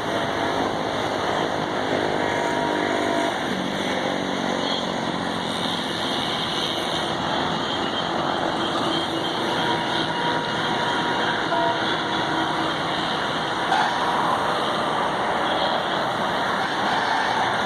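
WDM-3A ALCO diesel locomotive passing at speed with its horn sounding. The horn and engine drop in pitch about three and a half seconds in as it goes by, followed by the steady noise of the express coaches rolling past.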